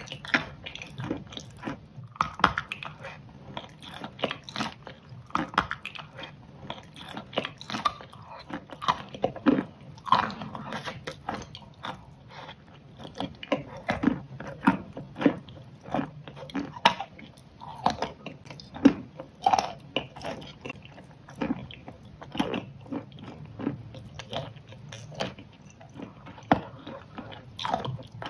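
A person biting and chewing food close to the microphone, ASMR-style: an irregular run of sharp bites and chewing clicks, several a second.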